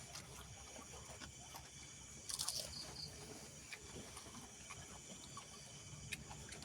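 Faint eating sounds: scattered small clicks of chewing and utensils, with one brief louder noisy sound about two and a half seconds in.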